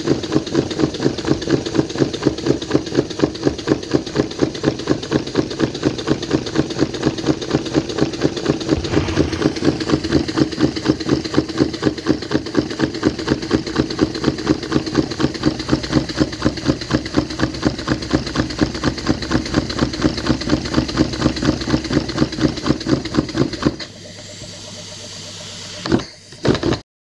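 Model twin-cylinder vertical steam engine running steadily with an even, rhythmic beat of about three strokes a second. Near the end the beat stops abruptly, leaving a low hum and one brief loud sound before the audio cuts out.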